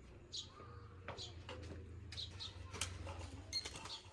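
A small bird chirping repeatedly, short high calls about once a second, over a steady low hum, with a few sharp clicks near the end.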